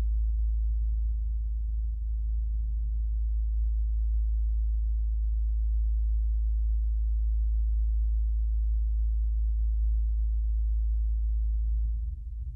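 Wind rumbling in a metal fireplace chimney, picked up through the chimney's metal by a LOM Geofón contact microphone: a steady, very deep drone with almost nothing above the low end. Near the end it dips and turns unsteady.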